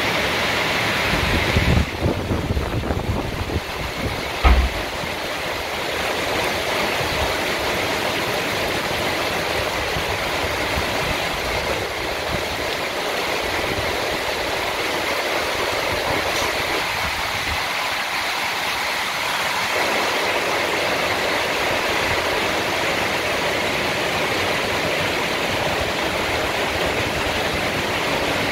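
Heavy rain pouring steadily, a dense, even hiss of downpour, with a few low thumps in the first five seconds.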